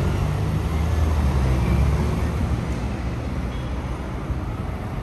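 Low, steady rumble of vehicles in motion, easing slightly toward the end.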